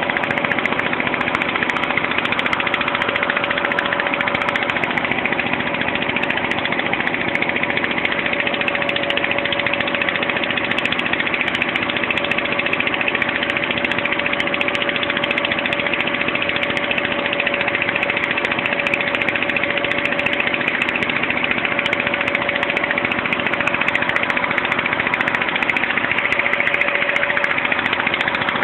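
A boat's engine running steadily under way, with water rushing and splashing along the hull.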